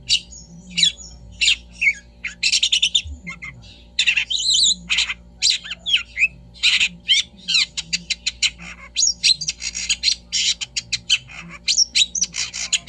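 Long-tailed shrike (cendet) singing in a fast, varied run of short chirps and harsh squawky notes. The song is sparser in the first few seconds and denser from about four seconds in.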